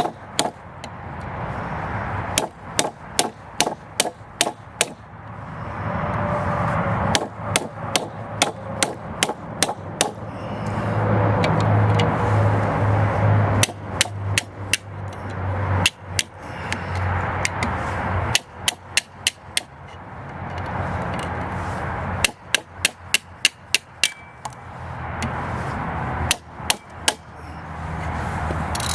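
Bursts of rapid hammer blows on a tool set against a microwave oven transformer's steel E-core laminations, driving them out, with pauses of a few seconds between bursts. A steady low hum fills the gaps.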